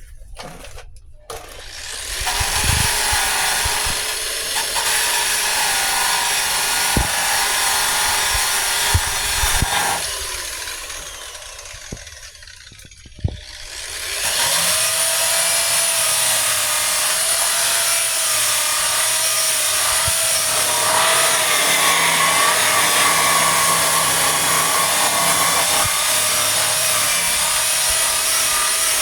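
Corded electric sander grinding body filler, its motor whine starting about two seconds in. It spins down around ten seconds in and starts again a few seconds later, the pitch wavering slightly as it is pressed on the panel.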